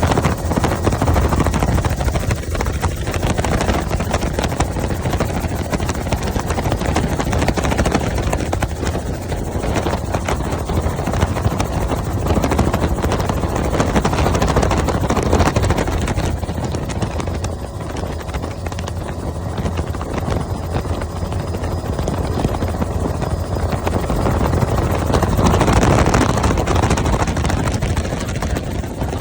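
Helicopter rotor and engine running with a loud, steady, unbroken noise.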